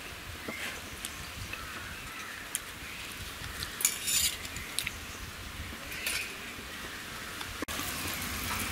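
Light kitchen handling noises over a faint hiss: a few soft clicks and a short crackle about four seconds in, another near six seconds.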